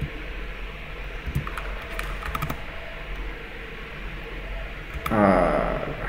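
Scattered computer keyboard and mouse clicks over a low steady hum, with a quick cluster of clicks about two seconds in.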